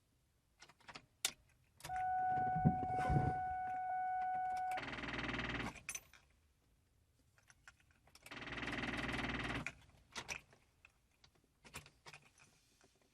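Car keys jangling and clicking at the ignition, then a steady electronic warning tone for about three seconds. Two short whirring bursts follow, each about a second long, with no engine catching: a no-start on a bad battery.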